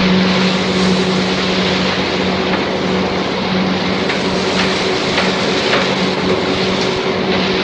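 A riverboat's engine drones steadily under the rushing of its wash and wind, with a constant low hum that holds one pitch.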